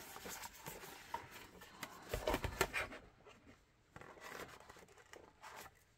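Cloth rubbing over a carbon-fiber-finish plastic holster shell to wipe off pencil marks: faint, irregular wiping strokes, loudest a couple of seconds in.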